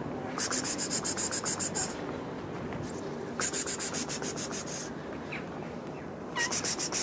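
Rapid rhythmic scraping at about seven strokes a second, in three bursts of a second or so: one about half a second in, one past the middle, one near the end.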